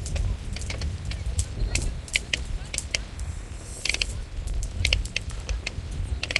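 New Year's Eve fireworks: many sharp cracks and bangs at irregular intervals, with a short hiss about four seconds in over a steady low rumble.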